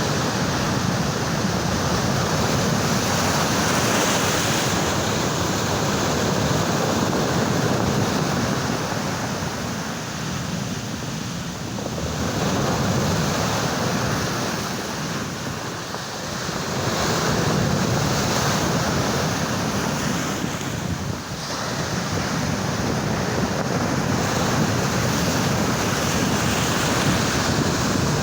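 Sea waves washing and breaking, with wind buffeting the microphone. The surf swells and eases every several seconds.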